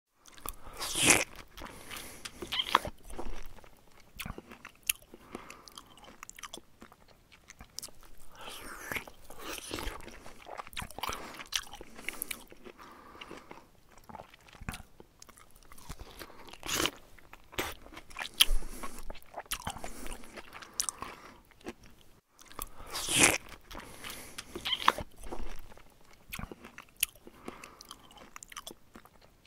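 Hamster crunching and chewing a mealworm: irregular crisp little bites and nibbles, with louder crunches about a second in and about three-quarters through.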